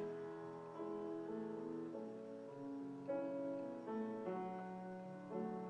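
Soft piano playing slow, held chords, the chord changing about once a second.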